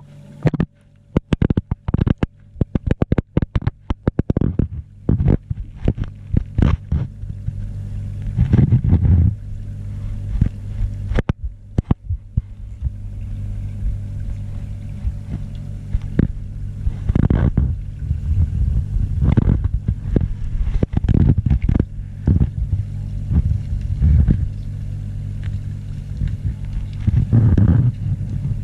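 Underwater sound through a GoPro's waterproof housing: a steady, muffled low hum with many sharp clicks and knocks on the housing. The knocks come thick and fast for the first several seconds, then more sparsely, with a few heavier rumbling swells.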